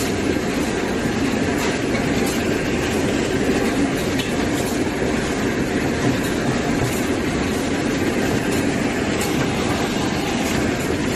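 Box shrink-wrapping machine running: a steady, even mechanical din from the conveyor and shrink tunnel, with scattered light clicks.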